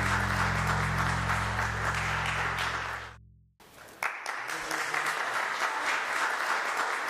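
Crowd applauding over background music with sustained low chords. Both fade out about three seconds in, leaving a moment of near silence, and then applause starts again abruptly about four seconds in.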